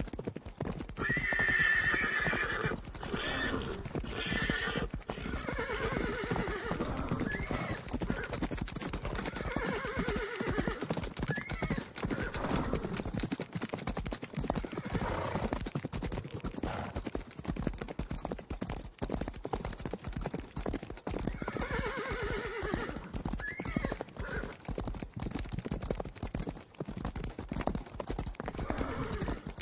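Horse stampede sound effect: many hooves galloping in a continuous drumming, with horses neighing several times over it, loudest about two seconds in.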